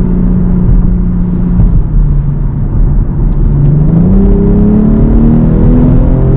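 BMW turbocharged 3.0-litre straight-six heard from inside the cabin, running steadily, then pulling harder from about three and a half seconds in with the revs climbing steadily, and a quick upshift drop in pitch near the end.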